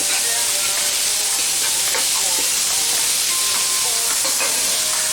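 Food sizzling in a hot pan, a steady hiss that doesn't let up.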